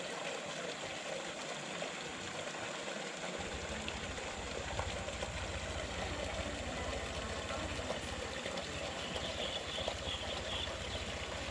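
Steady running, trickling water, with a low rumble that comes in about three and a half seconds in.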